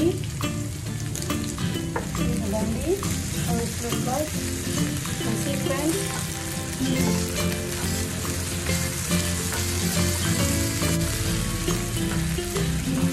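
Sliced okra sizzling in oil in a nonstick frying pan, stirred and turned with a wooden spatula, with many short scrapes and ticks of the spatula against the pan over the steady sizzle.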